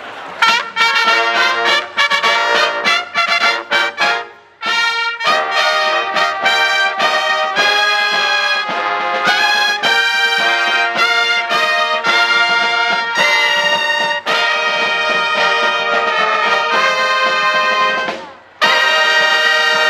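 Bavarian-style brass band playing, with horns and a sousaphone. It starts with short, clipped chords, pauses briefly about four seconds in, then plays longer notes. After a short break near the end it holds one long chord.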